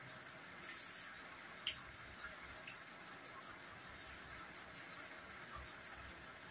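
Quiet room hiss with a few soft, short clicks of eating by hand: chewing and fingers picking fish off plates. The clearest click comes a little under two seconds in.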